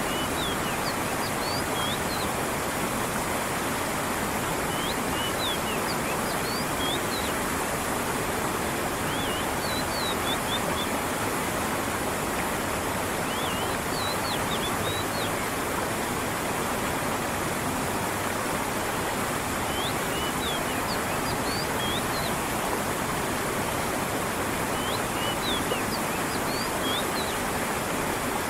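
Steady rushing of a stream with water falling, with small clusters of a bird's short, high chirps every few seconds.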